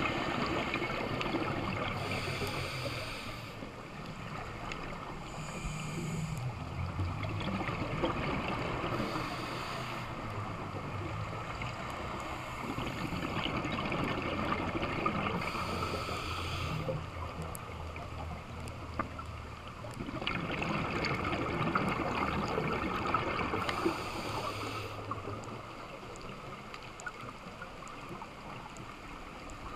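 Scuba diver breathing through a regulator, heard through the camera's underwater housing: hissing inhalations every few seconds, with low bubbling exhalations between them.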